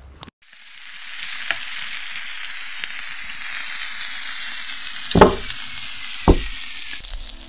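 Seafood rice sizzling steadily in a hot pan, the sizzle building up over the first second. Two heavy knocks come about five and six seconds in as king crab legs are laid in the pan.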